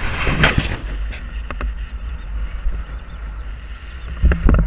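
Sportfishing boat under way at sea: a steady low engine rumble and rushing water, with wind buffeting the microphone. There is a loud gust about half a second in and another near the end.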